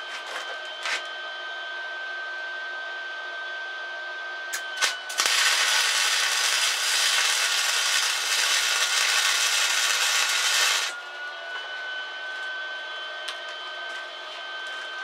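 Electric welding arc sizzling loudly and evenly for about six seconds as it welds a steel rat-tail tang onto a knife, starting about five seconds in and cutting off abruptly. A steady high whine runs underneath, with a few sharp clicks before the arc strikes.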